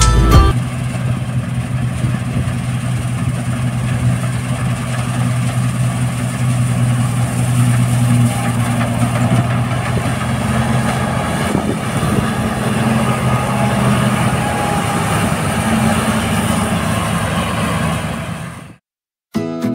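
New Holland TC5070 combine harvester running steadily while harvesting, a continuous engine drone with held low tones. It fades out near the end.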